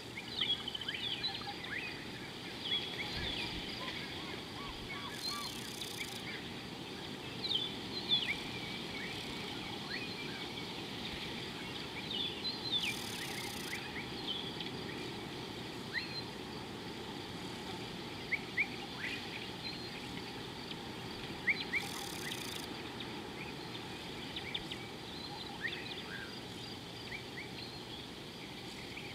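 Many short, high bird chirps and whistles scattered throughout, over a steady low rushing background.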